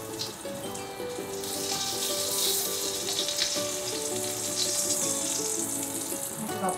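Oil sizzling steadily in a stainless-steel frying pan as battered jeon (Korean pan-fried pancakes) fry.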